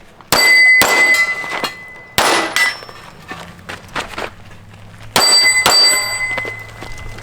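Pistol shots fired in quick pairs at steel targets, each hit followed by the steel plate ringing with a clear metallic tone; three volleys, the last near the end of the first second after the five-second mark, with the ringing fading over about a second.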